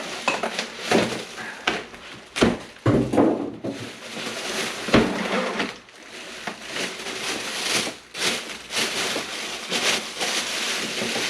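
Cardboard box and packing being handled and pulled apart while unpacking, with irregular knocks, scrapes and crinkling, loudest a few seconds in.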